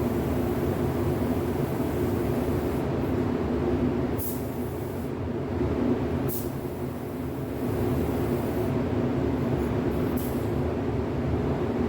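Steady mechanical drone of paint booth ventilation fans running during spray painting, with three short high hisses of air about four, six and ten seconds in.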